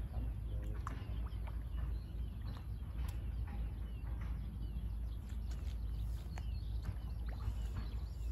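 Small birds chirping here and there, over a steady low rumble of wind on the microphone.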